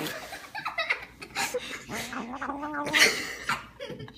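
A cat licking and lapping food off a spoon: irregular wet smacking and clicking mouth sounds, with a short low murmur about two seconds in.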